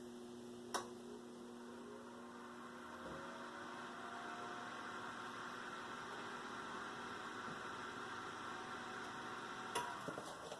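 Whirlpool electric convection oven's fan motor switching on with a click and humming, its tone rising over the first few seconds as the fan spins up, then running steadily. Near the end there are a few clicks and the hum stops.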